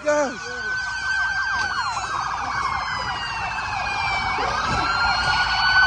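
Several police car sirens sounding at once, a mix of slow wails and rapid yelps, growing steadily louder.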